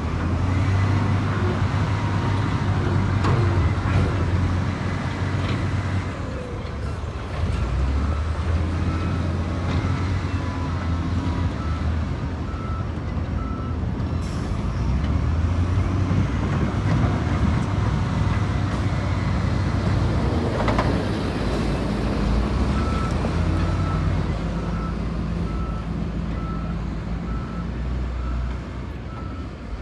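Bulldozer's diesel engine running and rising and falling with load as it pushes stone, with its reversing alarm beeping regularly for long stretches, silent for a while in the middle. A sharp knock comes about two-thirds of the way through.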